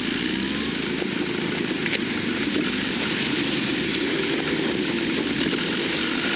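Steady road-traffic noise with an engine running: a low drone under a hiss of road noise.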